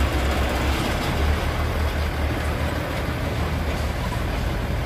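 Mercedes-Benz 1521's OM366LA six-cylinder turbo-intercooled diesel running close by with a low, pulsing rumble, as the loaded truck rolls slowly past.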